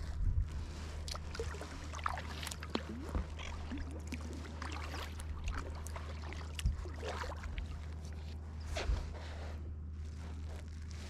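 Kayak paddling: irregular splashing and dripping of water off the paddle, with a few sharper knocks.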